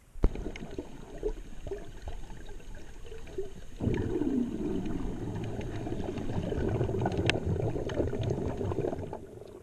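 Muffled water sloshing and gurgling around an underwater camera, louder from about four seconds in, with scattered sharp clicks.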